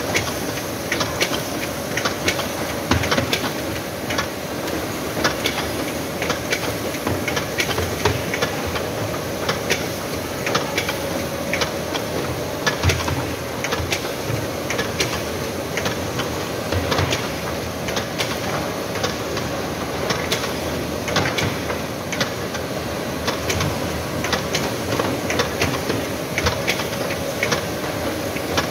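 PBM Powerful 10 ten-clamp perfect binding machine running: a steady mechanical clatter with frequent sharp clicks and knocks over a steady hum.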